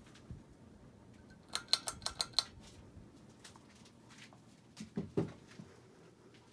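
Hunter Low Profile hugger ceiling fan running with a faint low hum. About a second and a half in, a quick run of about seven sharp metallic clicks, and about five seconds in, a couple of low thumps.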